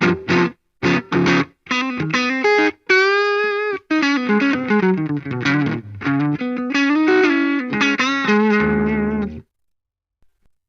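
Electric guitar with Fleor alnico Telecaster pickups played through a Vox VT20X amplifier: a few short chord stabs, a held note with vibrato, a run of single notes, then a final chord that cuts off about nine seconds in.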